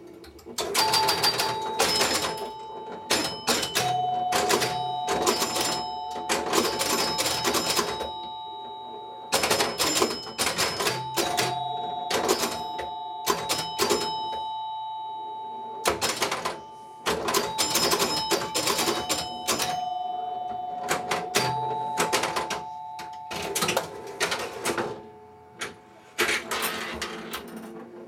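1972 Bally Little Joe electromechanical pinball machine clattering with relays, stepper units and score reels in quick runs of clicks, with its retrofitted chime set of two door chimes and a bell ringing over them. The two chime tones ring on for several seconds at a time, and the clatter comes in bursts with short pauses.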